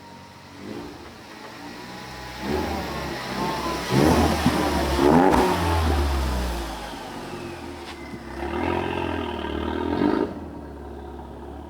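A car driving past, its engine rising in pitch as it accelerates and loudest about four to six seconds in; a second pass swells around eight to ten seconds and cuts off suddenly.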